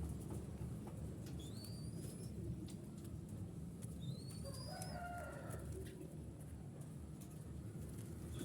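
Birds calling: short rising high whistles, about two seconds in, four seconds in and at the end, and a brief lower call about five seconds in, over a steady low background rumble.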